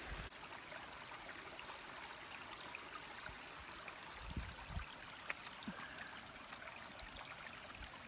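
Small rocky stream trickling faintly over stones, with a couple of soft low bumps about halfway through.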